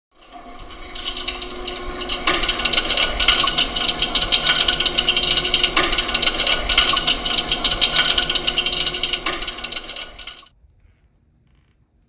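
Hisense dishwasher running with a fast clicking, grinding rattle and a heavier knock about every three and a half seconds, cutting off suddenly near the end. The noise is most likely a piece of debris trapped inside the filter basket.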